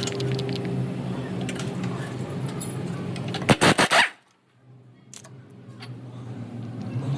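Car engine running with a series of light clicks and rattles. About three and a half seconds in come a few loud knocks, and then the sound cuts out abruptly before the engine sound slowly builds back up.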